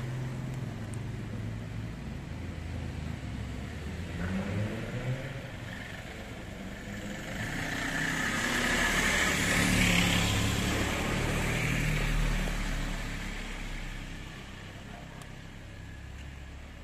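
Street traffic: a low motor vehicle engine hum, with a vehicle passing that grows loudest about ten seconds in and then fades away.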